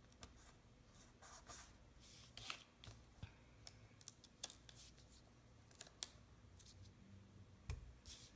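Faint paper handling: sticker sheets rustling and crackling as planner stickers are peeled off their backing and pressed down, a scattered series of short crackles and light taps.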